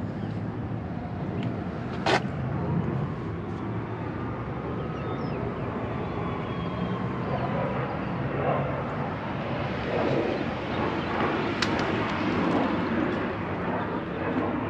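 Steady outdoor background rumble, swelling a little in the second half, with two sharp clicks: one about two seconds in, the other near twelve seconds.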